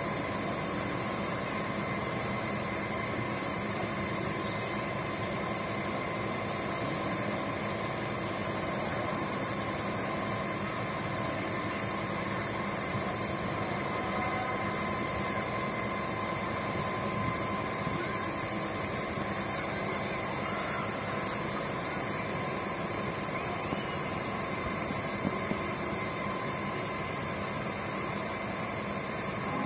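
Steady machine drone with a constant whine, holding an even level throughout.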